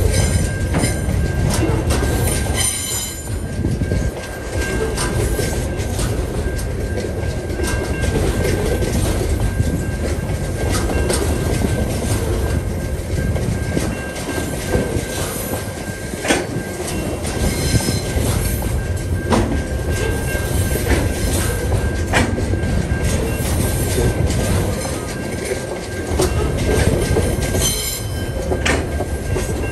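Container wagons of a TasRail freight train rolling steadily over a level crossing, their wheels clattering over the rail joints with sharp knocks now and then. Brief high wheel squeals come about three seconds in and again near the end. A steady high tone from the crossing's warning bell rings through it all.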